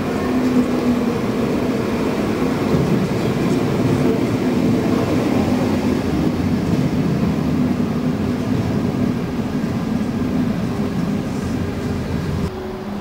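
A double-deck electric commuter train pulling into the platform and slowing to a stop, with a steady loud running noise and a low hum. The noise drops off abruptly near the end.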